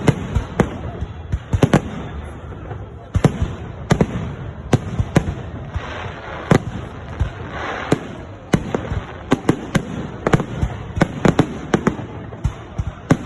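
Fireworks salute: shells bursting in a fast, irregular series of sharp bangs, some in quick clusters of two or three.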